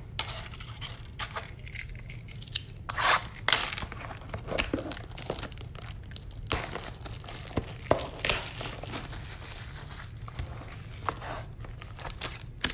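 Plastic shrink-wrap being torn and crinkled as a sealed trading card box is opened, with cardboard sliding and rubbing as the inner box is pulled out: a string of irregular rips and rustles.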